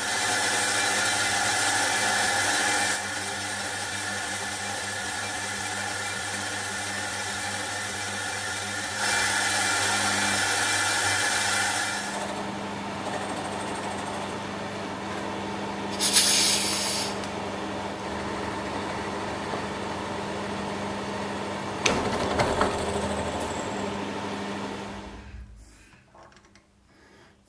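Milling machine running steadily while an end mill plunges into the metal flange of an air-compressor cylinder, cutting new bolt holes. There are two loud stretches of cutting noise, one at the start and one near the middle, and a short high screech later on. The sound falls away near the end.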